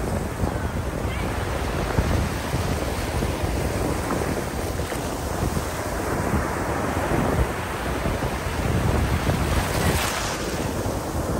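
Sea waves washing on the beach, with wind buffeting the microphone.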